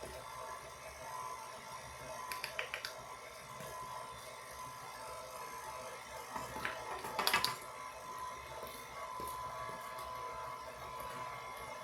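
Electric mixer running steadily, beating flour into cookie dough, with a few light knocks about two and a half seconds and seven seconds in.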